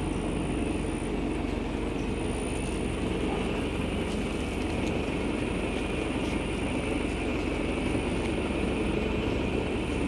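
Engine of a truck-mounted sewer suction and jetting machine running at a steady drone.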